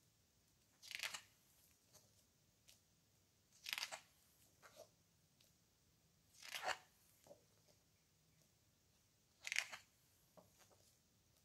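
Pages of a hardcover photobook printed on heavy coated paper being turned by hand: four short paper rustles, about three seconds apart, with near silence between them.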